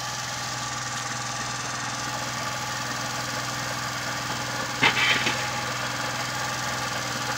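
An engine running steadily with an even hum, with a short, sharper sound breaking in about five seconds in.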